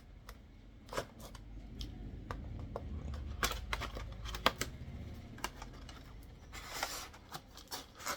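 Headphone packaging being opened by hand: scattered clicks, taps and scrapes of cardboard and plastic, with a short burst of rustling about seven seconds in.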